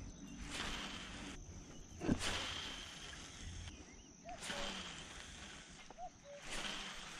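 Quiet outdoor ambience: soft swells of noise come and go about every two seconds, under a thin steady high insect buzz. A few short chirping calls come in pairs after the middle.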